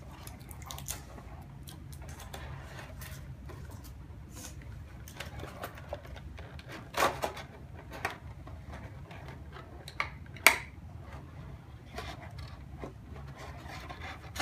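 Clear plastic packaging and small plastic doll accessories being handled: scattered clicks and crinkles, with a few sharper ones about seven and ten seconds in, over a low steady hum.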